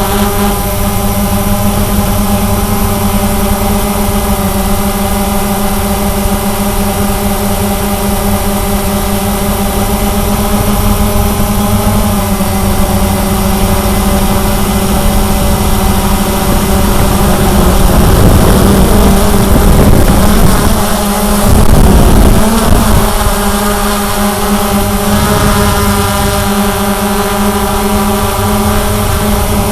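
Cheerson CX-20 quadcopter's brushless motors and propellers running in flight, a steady multi-note hum. A louder rushing, buffeting noise swells in from about 17 to 23 seconds in.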